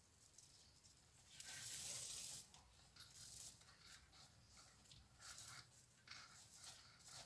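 Faint rustling and scraping of paper yarn being drawn through crochet stitches with a sewing needle as the pieces are sewn together. One longer pull about a second and a half in, then several shorter ones.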